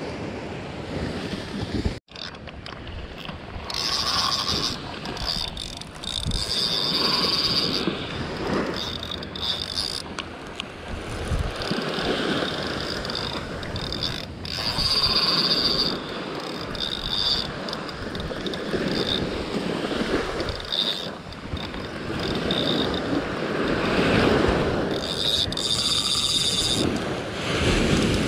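Small ocean waves breaking and washing up on a sandy beach, swelling and fading, with wind buffeting the microphone.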